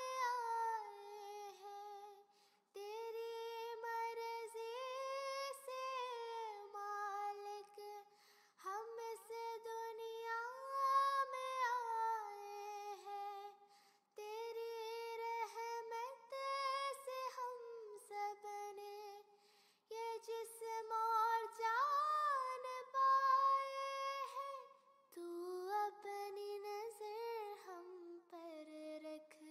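High, child-like voices singing a slow Hindi devotional song in long held notes, with short pauses between phrases.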